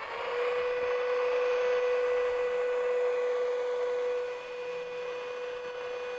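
Sea Eagle electric inflation pump spinning up with a brief rising whine, then running at a steady pitch as it pumps air through its hose into an inflatable kayak's chamber. It gets somewhat quieter about four seconds in.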